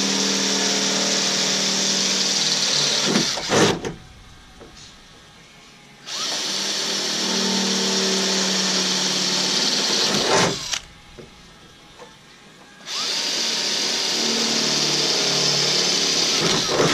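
Cordless drill boring holes through a Jeep Wrangler JK's thin steel hood with a regular twist bit, enlarging pilot holes to 1/4 inch. It runs steadily three times for a few seconds each, with short pauses between, and the first two runs end in a brief sharp spike.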